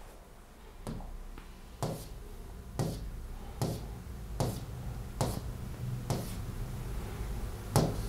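A series of eight sharp taps, roughly one a second, the last near the end the loudest, over a low steady hum.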